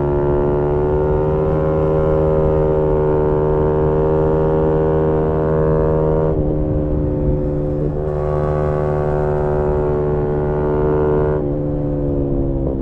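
Yamaha MT-125's single-cylinder engine through a GPR aftermarket exhaust, pulling at high, fairly steady revs under way. The pitch breaks briefly twice, about six and eleven seconds in, and starts to fall near the end as the revs drop.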